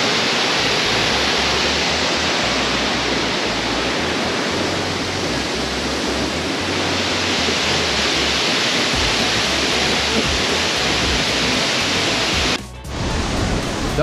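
Loud, steady roar of a waterfall close by: an even rush of falling water. It breaks off for a moment about twelve and a half seconds in, then goes on.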